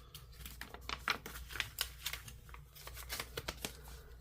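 Paperwork being handled: irregular rustling and small crackles of paper leaflets as they are leafed through.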